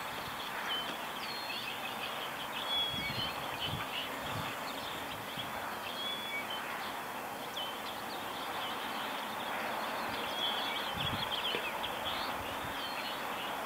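A dawn chorus of small birds: short, high chirps and whistles scattered throughout over a steady outdoor hiss.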